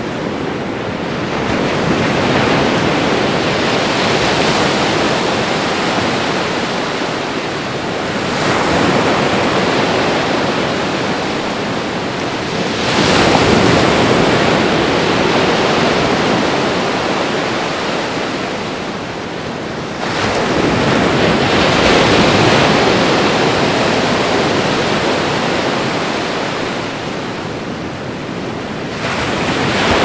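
Ocean surf on a beach: a steady rushing wash of breaking waves that swells and eases again every several seconds as each wave comes in.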